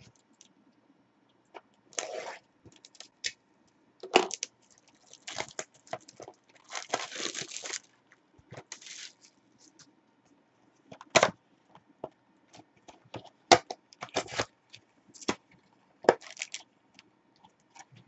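A sealed box of Select AFL Footy Stars trading card packs being opened by hand: irregular bursts of tearing and crinkling wrapper and cardboard, mixed with sharp knocks and taps. The longest tearing stretch comes about seven seconds in.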